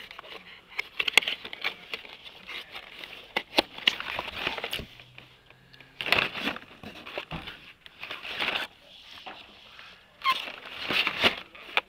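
Plastic blister packs and cardboard backing cards of carded Hot Wheels cars rustling, crinkling and clacking against each other as they are flipped through by hand, in irregular rustles and sharp clicks.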